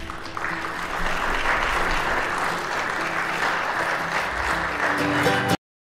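Applause over instrumental background music with steady held notes. Both stop abruptly near the end.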